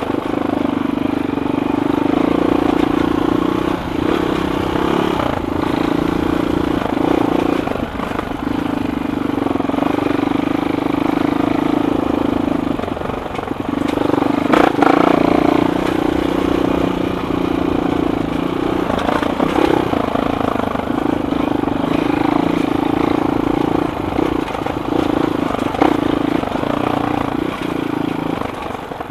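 Suzuki LTR 450 quad's single-cylinder four-stroke engine running at a steady, low throttle on a slow off-road ride. The engine note dips briefly about halfway, and a knock comes just after it, with a few lighter knocks elsewhere.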